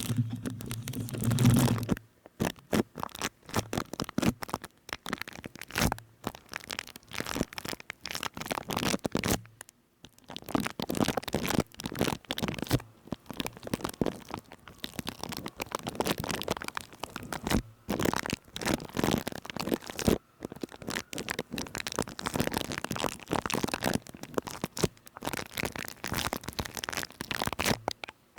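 Dense, irregular crackling, crunching and scratching worked right at the microphone as ASMR triggers, with a few brief pauses. A low hum sits under the crackle for the first two seconds.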